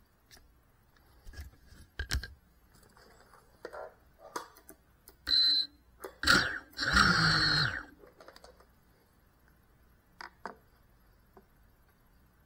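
Small FPV drone's motors and propellers spinning up in three short bursts, the last about a second long with its pitch falling as it spins down, among scattered clicks and scrapes: the drone flipping itself upright from lying upside down.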